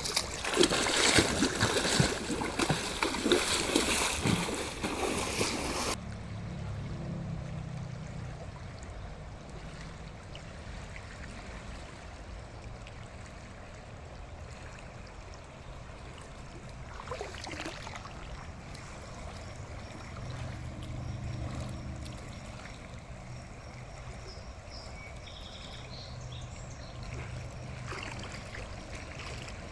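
Water splashing loudly close by for about the first six seconds, then suddenly quieter: the steady rush of a river flowing past.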